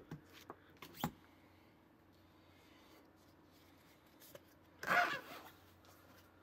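Kinetic sand and a plastic tub lid being handled on a tabletop: a few light clicks in the first second, then a brief scrape about five seconds in.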